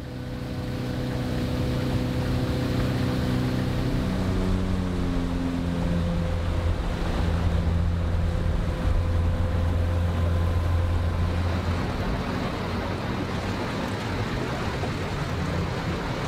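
A boat's motor running under way. Its pitch rises as it speeds up about four seconds in, over a steady rush of wind and water.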